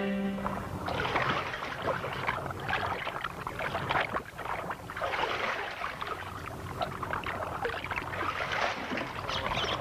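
Water splashing and lapping as a small boat is rowed, an uneven wash of sound with no steady rhythm.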